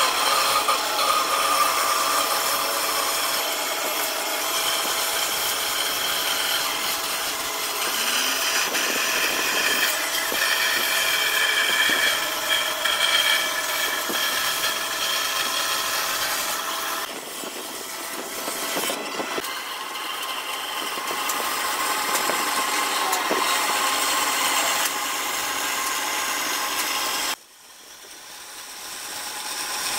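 Band saw cutting a curve through a thick wooden slab, the blade running steadily through the wood. Near the end the sound drops away suddenly and then comes back up.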